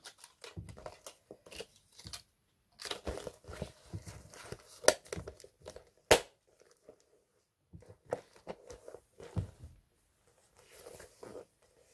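A glossy vinyl clutch bag being handled: crinkling and rustling, with sharp clicks of its metal frame clasp, the loudest about six seconds in.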